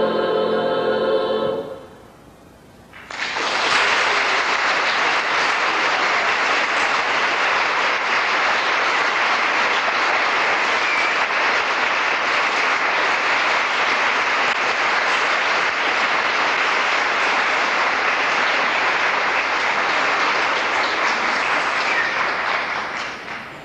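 A choir holds its final chord, which cuts off after about two seconds. After a short pause the audience applauds steadily for about twenty seconds, fading near the end.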